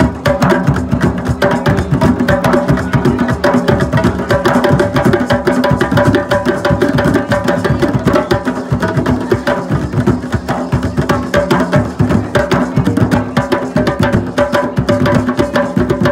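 An ensemble of hand drummers playing djembes and larger rope-tuned drums together, a dense, steady, interlocking rhythm of open tones and slaps that does not pause.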